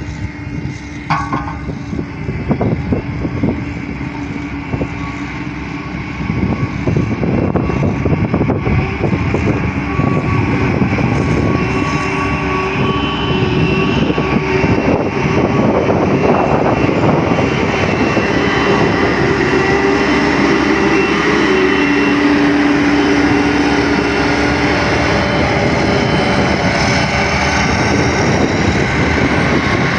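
Diesel engine of heavy road-construction machinery running steadily. It grows louder about six seconds in and then holds at that level.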